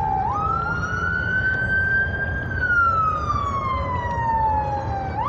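Emergency vehicle siren wailing: the pitch sweeps up quickly, holds high, slides slowly down over a couple of seconds, then jumps up again near the end. Road traffic rumbles underneath.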